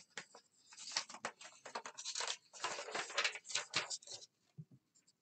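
Paper rustling as pages are handled: a dense run of short, dry rustles for about three seconds, thinning out near the end.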